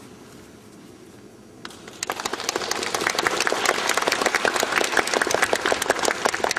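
Audience applauding. It breaks out about two seconds in after a quiet hush, as a dense patter of many hands clapping that carries on steadily.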